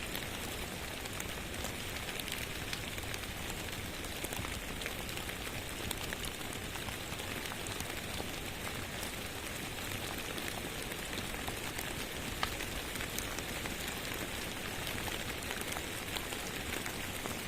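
Steady rain with a crackling fireplace mixed in: a continuous even hiss of rainfall with scattered sharp pops, one of them louder about twelve seconds in.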